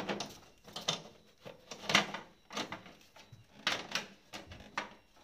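Sheet-metal mounting plate of a wall-mounted air-conditioner indoor unit being handled against the unit's plastic back: a string of irregular clanks, clicks and rattles, about eight sharp knocks.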